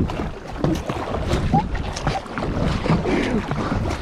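Kayak paddles splashing through the water in quick, hard strokes, with wind rumbling on the microphone.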